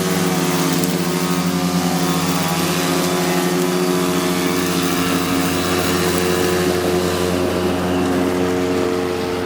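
Handheld grass trimmer's motor running steadily at an even pitch.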